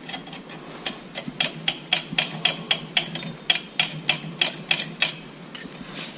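Small steel wrench working the nuts on a hitch U-bolt: a run of sharp metal clicks, about four a second, that starts about a second in and stops near the end.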